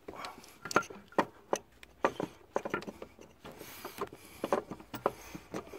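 Irregular metallic clicks and knocks as an air-conditioning compressor and its mounting bolts are handled and worked back into the engine bracket.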